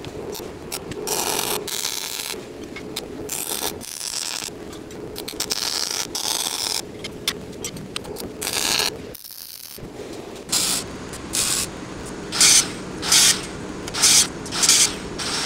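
A wire-feed (MIG) welder tacking a steel tube frame, heard as a run of irregular crackling bursts. After a cut, an angle grinder cuts steel flat bar in a series of short, loud bursts.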